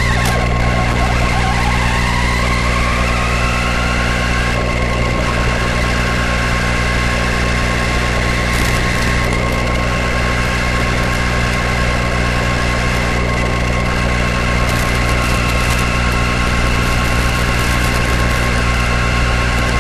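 Steady electrical hum and buzz carried on an RC car's onboard FPV camera audio, with a constant high tone. Over the first few seconds a motor whine falls and then rises in pitch as the car's speed changes.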